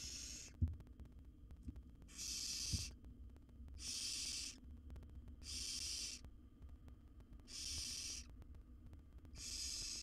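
Barn owl nestlings giving rasping, hissing begging calls, about one every one and a half to two seconds, six in all. Two dull thumps come early, the louder about half a second in.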